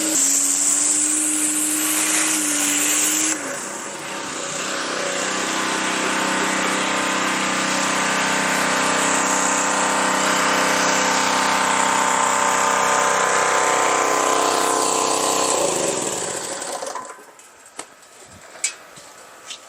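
Gas pressure washer's 212cc four-stroke engine and pump running steadily under load while spraying. Its note changes about three seconds in, and the sound falls away about 16 seconds in, followed by a few light clicks.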